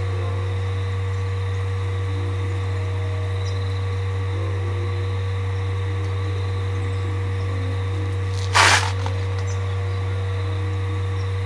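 A steady low hum with a few faint steady tones above it, and one short burst of hiss about eight and a half seconds in.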